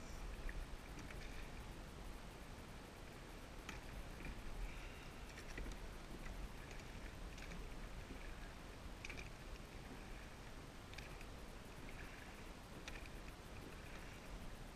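Rowing on calm water: the oars click in their oarlocks and the blades splash softly at each stroke, about once every one and a half to two seconds. Under it runs a low rumble of wind on the microphone.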